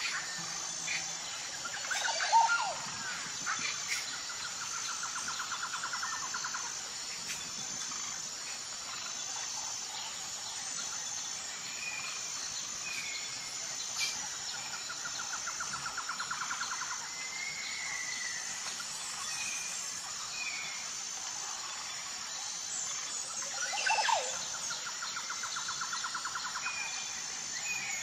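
Outdoor nature ambience: birds chirping and calling, with several short rattling trills, over a steady high-pitched insect chorus. A louder call sounds about two seconds in and again near the end.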